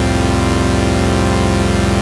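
A chorded sound effect: a loud electronic chord of many stacked tones held without change, with a fast flutter in its low notes.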